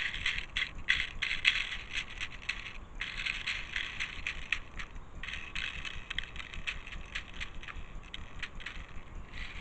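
Plastic airsoft BBs clicking and rattling as they are pushed by the fingerful into the gun's magazine: a dense patter of small clicks, with short pauses about three and five seconds in.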